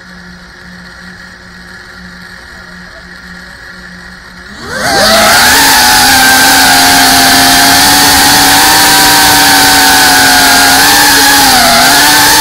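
FPV quadcopter's brushless motors and propellers, heard from the drone's own camera. A faint low hum sits under the first few seconds. About four and a half seconds in, a rising whine marks the quad throttling up and lifting off, then it holds a loud, steady buzzing whine that wavers slightly in pitch.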